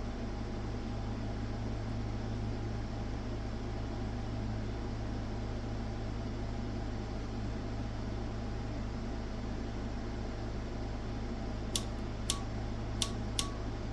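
Steady low electrical hum with a fan-like whir. Near the end come four sharp clicks about half a second apart, an oscilloscope's rotary selector knob being clicked through its detents.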